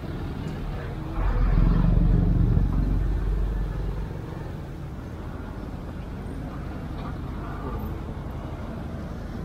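Ride-along sound on a moving motorcycle in traffic: engine and road noise. A louder low rumble comes in about a second in and lasts about three seconds, then the sound settles to a steady level.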